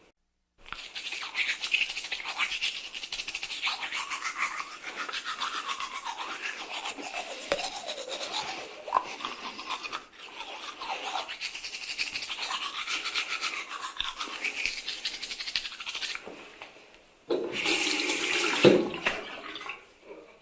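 Toothbrush scrubbing teeth with toothpaste, rapid back-and-forth strokes whose tone shifts as the brush moves around the mouth. It stops at about 16 seconds, and a louder rush of sound about two seconds long follows near the end.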